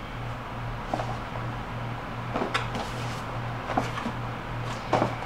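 Cardboard window box of a Funko vinyl figure being handled and turned in the hands: a few light knocks and scrapes, about four over a few seconds, over a steady low hum.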